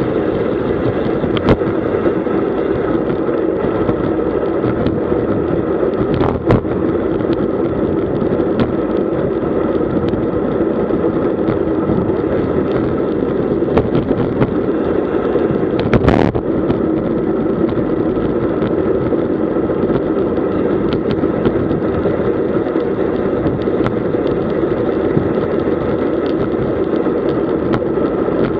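Steady rush of wind over the microphone, with road-bike tyres humming on tarmac, while riding in a group at about 40 km/h. A few brief sharp knocks or clicks cut through, the loudest about two-thirds of the way in.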